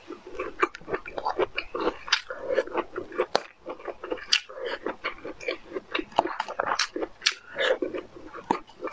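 Close-miked chewing and crunching of broccoli florets, an irregular stream of short crunches and clicks.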